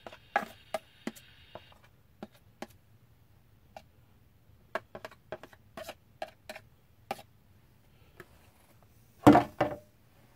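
A utensil tapping and scraping against a plastic food container as its contents are knocked out into a cast iron skillet: a run of separate sharp clicks, with two louder, heavier knocks close together near the end.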